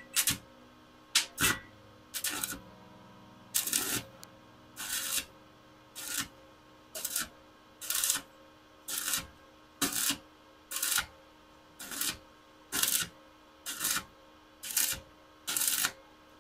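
Stick-welding arc from a 7018 electrode at about 140 amps, crackling in short bursts about once a second as the arc is struck and broken in turn to fill a hole in thin steel tube.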